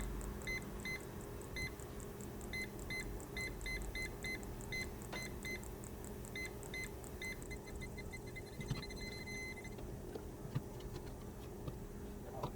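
Aftermarket ultrasonic parking-sensor display beeping while one test sensor detects an object: short high beeps at an uneven pace that quicken and then run into a continuous tone before stopping. The faster beeping and the steady tone are the kit's sign of an object getting closer.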